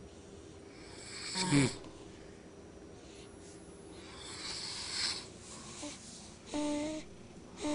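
Sleepers snoring: a loud snore falling in pitch about a second and a half in, a long breathy breath around the middle, and a short, higher, steady-pitched snore near the end.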